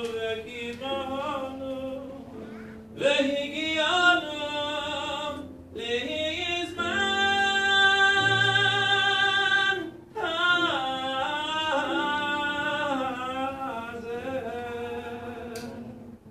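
A single voice singing a Hebrew liturgical melody in a full, operatic style, in phrases with wavering held notes and one long sustained note about seven seconds in.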